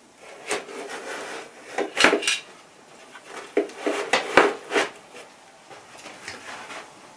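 Sharp knocks, clatter and rubbing as a metal telescope mount head (iOptron CEM25p) is handled and pressed down into the foam inserts of an aluminium carry case. The knocks come thick in the first five seconds and thin out near the end.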